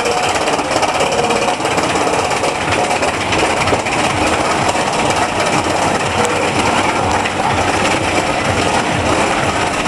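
Bobsleigh roller coaster train rolling along its elevated track, a steady, even noise of wheels running on the steel trough.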